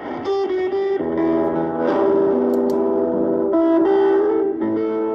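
Guitar music from a shortwave broadcast, played by a Tecsun S-2000 receiver tuned to 11885 kHz, with sustained notes changing every second or so.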